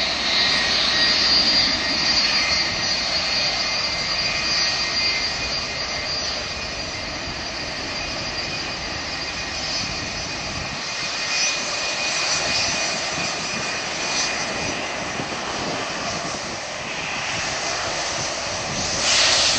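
Twin jet engines of a Boeing 757-200 taxiing past at low power: a steady high whine over a rush of engine noise, swelling louder near the end.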